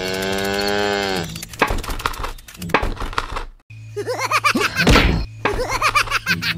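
A cow moos once at the start, then a run of clicks and knocks follows. About four seconds in comes a strained, wavering effort sound with a loud thump, then more clicking.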